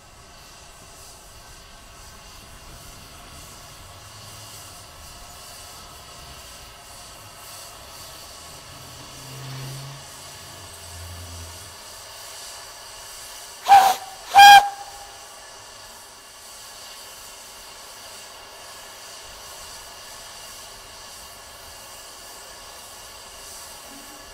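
Narrow-gauge steam locomotive Southern 762 'Lyn' hissing steam steadily, with two short, loud toots on its steam whistle a little under a second apart about halfway through.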